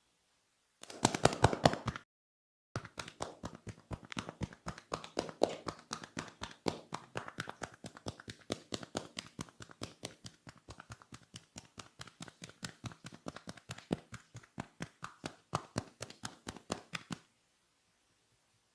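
Hands slapping and tapping on skin in a fast massage rhythm, about six sharp strikes a second. A short, louder flurry of slaps comes about a second in, then a brief cut to silence, then the steady run of strikes.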